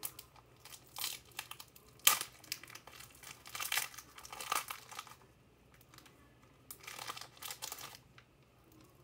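A trading card pack's plastic wrapper being torn open and crinkled by hand, in irregular bursts with a sharp rip about two seconds in and a quieter lull midway.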